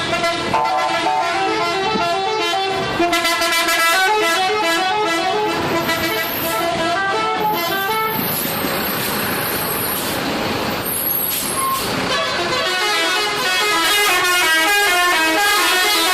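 Bus telolet horns, multi-tone musical air horns, playing melodic runs of notes that step up and down with several tones sounding together. A rushing hiss takes over for a few seconds about halfway through before the horn melodies return.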